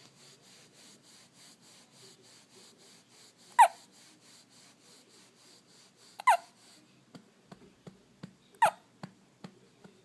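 One-week-old baby hiccuping three times, a few seconds apart: each hiccup a short, sharp squeak that drops quickly in pitch.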